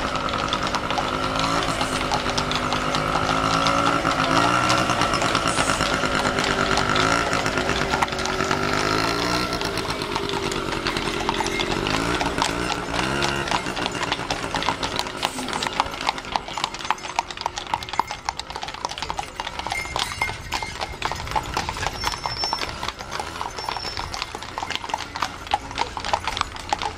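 Horses' hooves clip-clopping on asphalt, many horses at once, as mounted riders and a horse-drawn carriage pass close by; the hoof clatter is densest in the second half. Through the first half a small motor-scooter engine runs, rising and falling in pitch.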